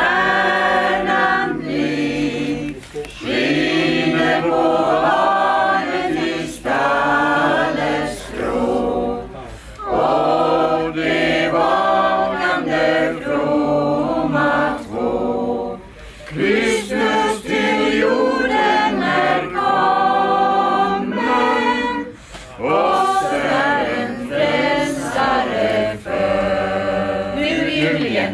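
Lucia choir of women in white singing unaccompanied, in sung phrases with short breaks for breath between them.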